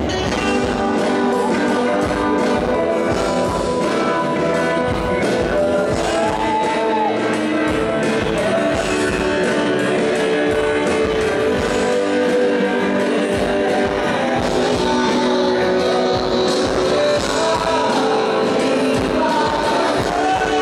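Live band playing loud music with electric guitar, a steady drum beat and singing.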